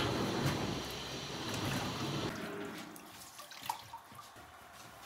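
Wood fire burning with a rushing noise inside a large clay tandoor as it is stoked with a long iron rod, dying down about two seconds in; a faint tick later on.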